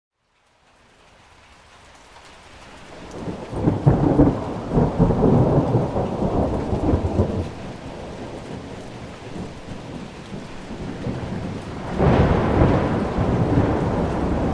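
Thunderstorm: rain falling steadily with rolling thunder. The sound fades in from a moment of silence, and a long roll of thunder builds about three seconds in and rumbles for several seconds. A second peal breaks suddenly near the end.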